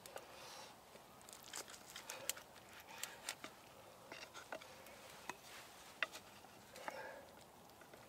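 A knife cutting through a crisp bacon-wrapped meat pie and scraping on a wooden plate: faint, scattered crunches, clicks and scrapes.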